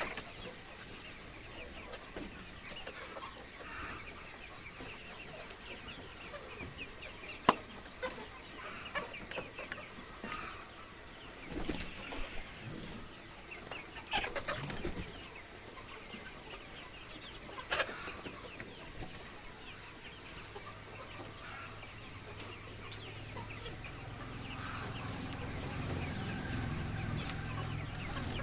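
A flock of egg-farm chickens clucking, with scattered short calls throughout. A sharp click stands out about a quarter of the way in, another comes around two-thirds through, and a low steady hum builds up in the last third.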